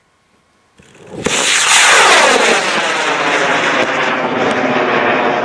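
A K-class high-power rocket motor ignites about a second in with a sharp crack, then burns with a loud, steady rushing roar as the rocket climbs away.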